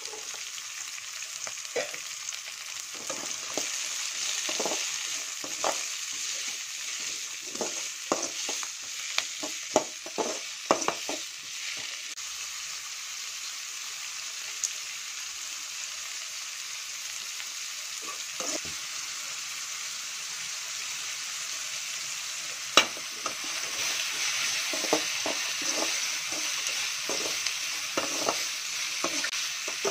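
Diced carrots, beans, onion and green chillies sizzling in oil in a steel kadai, with a steady hiss. A perforated steel ladle scrapes and clinks against the pan in two spells of stirring, the first from about two seconds in to about twelve seconds, the second from about twenty-three seconds in.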